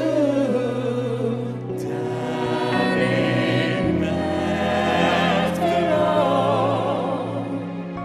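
A vocal ensemble singing held harmonies over a string orchestra, live. The voices swell with vibrato about three seconds in, over long sustained chords.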